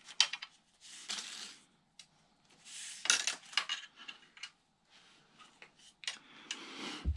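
A cloth rubbing over a cork fishing-rod grip in several short bursts, wiping away the sanding dust of the wood putty used to fill its pits. A soft low thump comes near the end.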